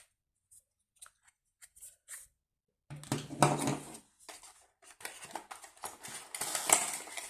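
Handling of a phone's retail box and its packaging: a few faint light clicks, then from about three seconds in, continuous rustling of paper and plastic as the box contents are searched.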